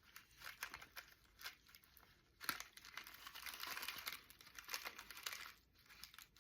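Packaging being handled and crinkled: a few small crackles at first, then a denser run of crinkling from about two and a half seconds in until shortly before the end.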